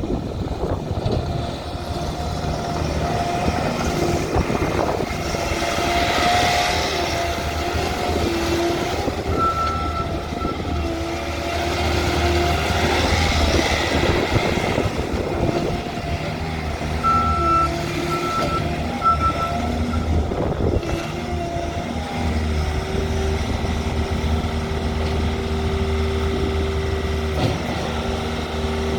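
2023 Bobcat T64 compact track loader's diesel engine running steadily, its pitch shifting up and down as the machine works. Its backup alarm beeps in two short runs, about a third of the way in and again a little past halfway.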